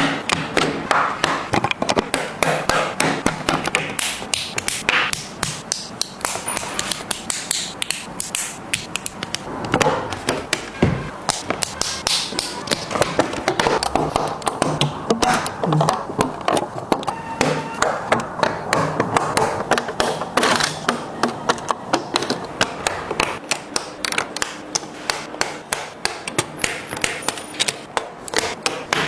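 Plastic LEGO bricks clicking and snapping as they are pressed together onto a model: a steady run of quick, sharp clicks, several a second.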